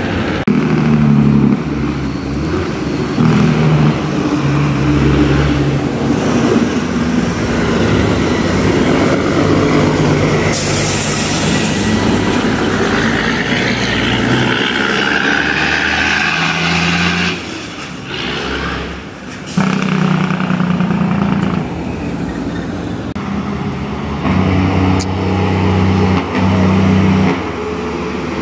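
Engine brakes (jake brakes) on heavy diesel trucks, loud and coming in stretches that start and stop as the trucks slow. There is a short burst of air hiss, typical of air brakes, about ten seconds in.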